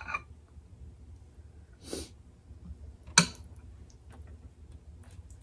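Quiet mealtime sounds: a short breath about two seconds in, then a sharp clink of a metal spoon set down in a glass serving bowl just after three seconds, with a few faint small ticks of eating.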